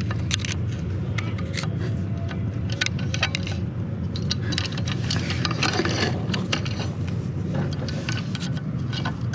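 Screwdriver blade clicking and scraping against the metal lock washer and nut on a Harken roller-furler drum as the washer is pried loose, many short irregular metallic ticks. A steady low rumble runs underneath.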